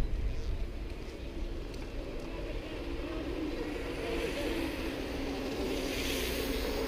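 Wind rumble and riding noise picked up by an action camera on a mountain-bike ride, steady throughout, with a low thump right at the start.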